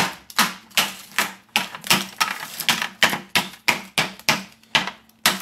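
A butter knife tapping a sheet of hard macadamia nut brittle to crack it into pieces: a steady run of sharp taps, about three a second.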